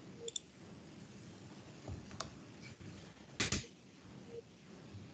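A few sharp clicks at a computer over faint room hiss, with a louder double click about three and a half seconds in.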